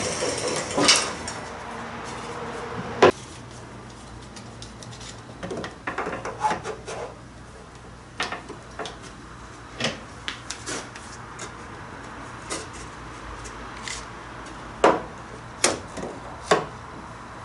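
Wooden strips and plywood being handled on a table-saw top and fixed in place with one-handed bar clamps: scattered sharp wooden knocks and clicks, with a cluster of louder clicks near the end. A steady whir fades away over the first couple of seconds.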